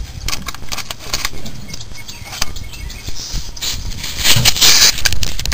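Hand work on a van's rear drum brake: scattered metallic clicks, knocks and scraping as the old wheel cylinder and its parts are handled. A louder scraping rush comes about three and a half seconds in and lasts a second or so.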